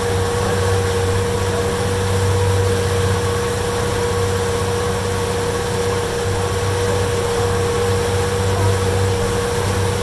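Boat engine running steadily, a constant drone with a steady high whine over it.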